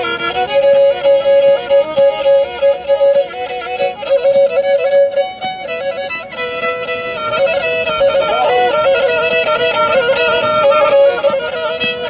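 Black Sea kemençe, a small pear-shaped fiddle held upright and bowed, playing a fast traditional tune in a steady run of short notes.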